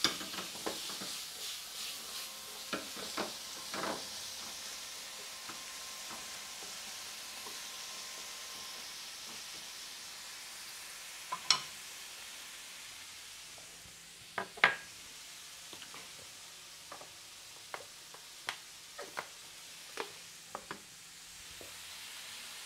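Pineapple, tomato and carrot sizzling in a nonstick frying pan over a gas flame: first tossed in the pan with a quick run of clicks, then frying steadily with a sharp click now and then.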